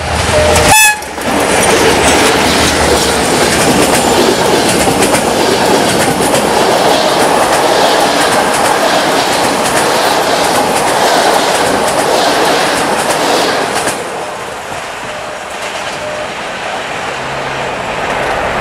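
A diesel-hauled passenger train passes close by: the locomotive goes past about a second in, then the coaches rumble and clatter over the rail joints for about twelve seconds, and the sound eases off near the end as the last coach moves away.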